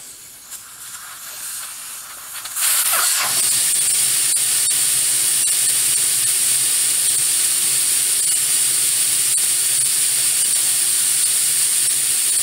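Air escaping from a 35x12.50 R15 LT truck tire as it is let down. A faint hiss for the first two and a half seconds or so, then it jumps suddenly to a loud, steady hiss that just goes on and on.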